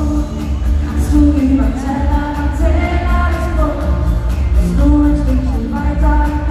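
Live schlager pop song over a big arena sound system: a singer's voice carrying the melody over a heavy, steady bass beat, heard from the stands with the hall's echo.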